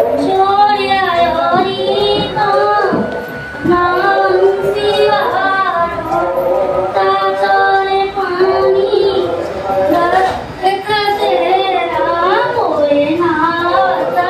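A high female voice singing a devotional song in long, held notes that glide from pitch to pitch, with few breaks.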